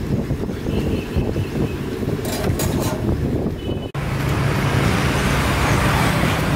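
Steady low rumble of street noise with a faint hum. About four seconds in it cuts out for an instant, then goes on slightly louder and steadier.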